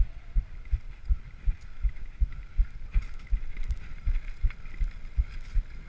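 Mountain bike jolting over a rough dirt trail, heard through the camera mount as irregular low thuds several times a second, with a few faint clicks and rattles.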